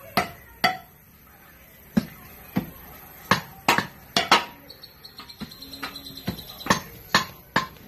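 Hand digging tools, pickaxe and hoe blades, striking hard soil and stones as a trench is dug: about a dozen sharp, irregular knocks and clinks, several in quick succession near the middle.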